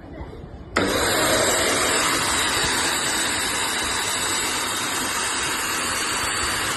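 Midea 2-in-1 stick vacuum cleaner switched on about a second in, its motor then running steadily: a loud rush of air with a thin, steady high tone on top.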